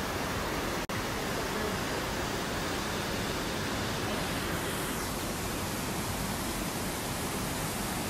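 Steady rush of a waterfall pouring into a rock pool, with a split-second dropout about a second in.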